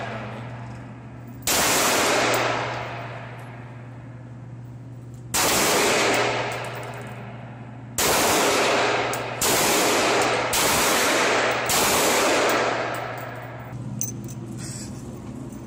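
Six handgun shots fired one at a time at uneven intervals, each a sharp report followed by a long echo that dies away in the concrete range. The shots come about a second and a half in, then at roughly five, eight, nine and a half, ten and a half and eleven and a half seconds, the last four faster.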